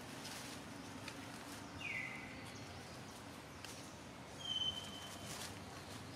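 Two short, high, whistle-like animal calls about two and a half seconds apart: the first slides down in pitch, the second holds one note for nearly a second. Faint scattered clicks sound in between.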